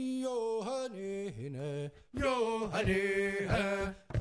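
A man's voice chanting a song in long held notes that slide between pitches, with a short break about halfway through. In the second half a steady beat of about three strokes a second comes in under the voice.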